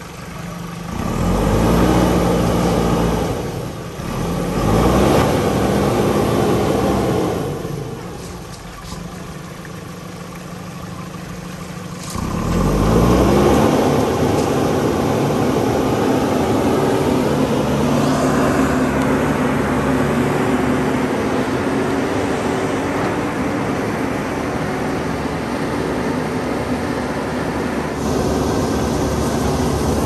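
JCB 3DX backhoe loader's diesel engine revving up sharply three times, about a second, four seconds and twelve seconds in, with a quieter lull between the second and third. After the third it runs steadily at high revs.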